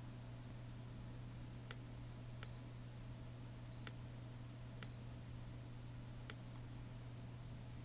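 Lowrance HDS touchscreen fishfinder/chartplotter giving key clicks as its screen is tapped: five sharp clicks spread over a few seconds, three of them followed by a short high beep. A steady low hum lies underneath.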